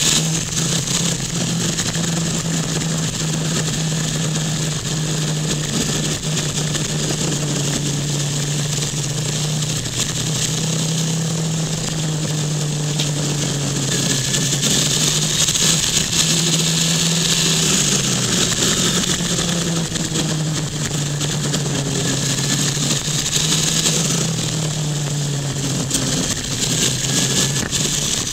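Sport motorcycle running at speed through a series of bends: a steady engine note that dips and rises a few times, over loud wind rush.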